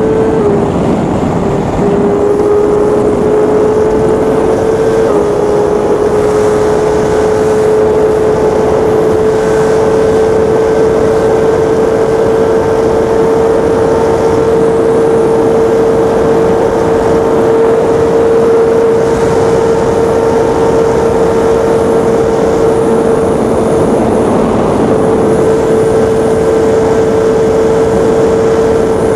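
BMW HP4's inline-four engine held at high revs at full speed, with heavy wind noise. Its note steps down slightly about five seconds in, then climbs slowly and steadily.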